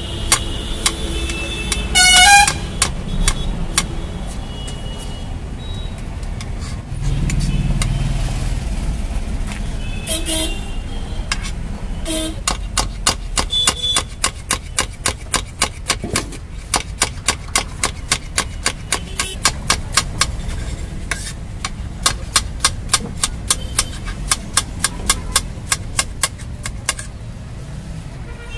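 Large kitchen knife chopping onion, carrot and cabbage on a stone slab: a run of sharp strikes, about three or four a second through the second half. Street traffic runs underneath, with a vehicle horn honking about two seconds in.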